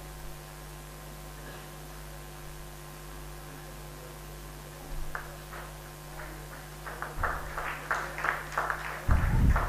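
Steady electrical hum from the hall's sound system. From about five seconds in, a few people clap by hand, scattered at first and then about two to three claps a second. A low thump just before the end is the loudest sound.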